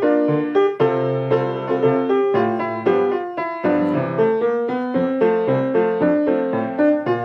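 Piano playing a steady run of notes and chords, the tune that goes with the school-song lyrics on screen.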